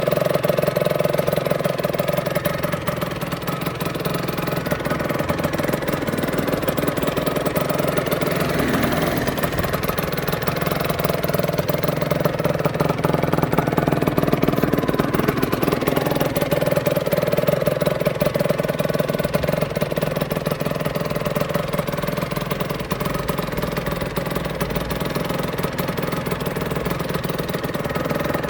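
Aprilia RS125's single-cylinder two-stroke engine running at a steady idle, its note swelling slightly now and then.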